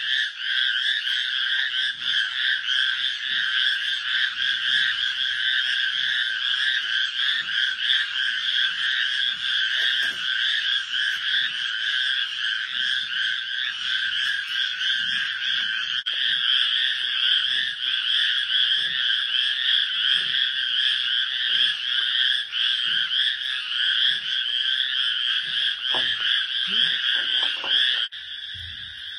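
Dense night chorus of frogs calling, a continuous trilling at two pitches, with faint repeated crunching underneath as a giant panda chews bamboo. The chorus drops suddenly in level near the end.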